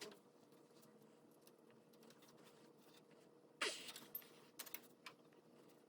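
Faint hand-work noise on the steering shaft coupler: mostly quiet, then a short scrape a little past halfway followed by a few light clicks as the set screw and tools are handled.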